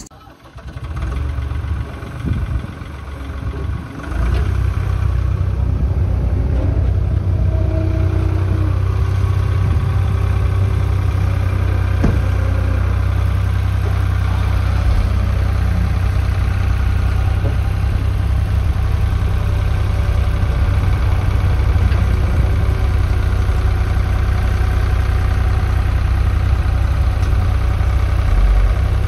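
Truck engine idling steadily with a deep, even hum, setting in about four seconds in after a few brief irregular knocks.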